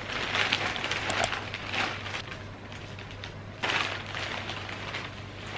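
Rustling of a plastic cape and gloved hands working hair dye through wet hair, in irregular bursts, the loudest about two-thirds of the way in, over a low steady hum.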